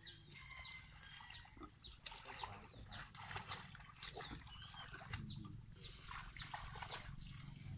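An animal chirping over and over: short, high calls that fall in pitch, about two a second, over a low steady rumble.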